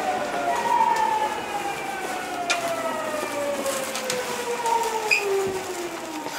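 Kobe Municipal Subway 1000 series car's GTO-VVVF inverter and traction motors whining in a chord of tones that falls steadily in pitch as the train slows under electric braking. A sharp click about two and a half seconds in.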